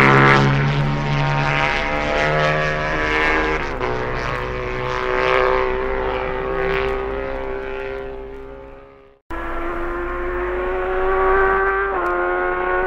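Racing motorcycle engine held at high revs, its pitch climbing slowly. It fades out about nine seconds in, then another engine recording cuts in and drops briefly in pitch, like a gear change, near the end.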